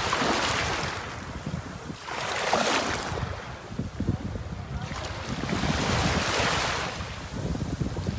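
Small sea waves washing in over a shallow pebble shore, the hiss of water over stones swelling and fading three times. Wind rumbles on the microphone throughout.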